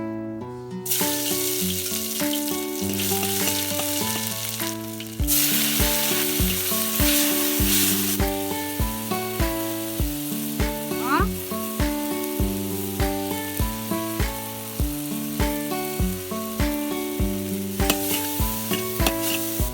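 Food frying in hot oil in a pan, a steady sizzle that starts about a second in and grows louder about five seconds in, over background music with a steady beat.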